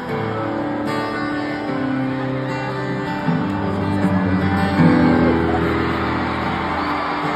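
Acoustic guitar strummed live through a concert sound system, each chord ringing on into the next.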